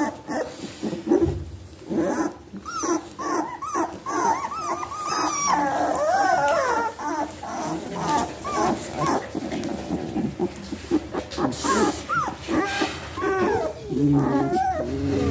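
A litter of young Australian Shepherd puppies whimpering and squeaking: many short, high, overlapping cries that rise and fall, with one longer falling cry about six seconds in.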